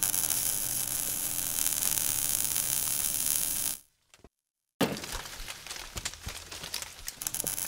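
Logo-reveal sound effect: a steady, crackling hiss that cuts off suddenly just before 4 seconds. After a short silence, a sharp hit comes at about 5 seconds, followed by more crackling.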